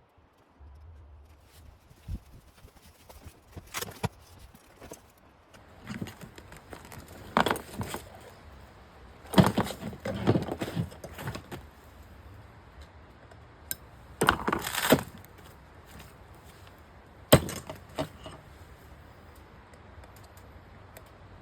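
Small metal parts and tools being handled: scattered clicks, taps and short clattering clusters, with the busiest stretch about ten seconds in.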